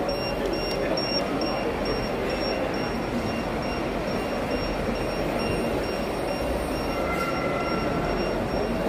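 Steady background din of a busy exhibition hall, with a thin high whine running through it and a faint short tone about seven seconds in.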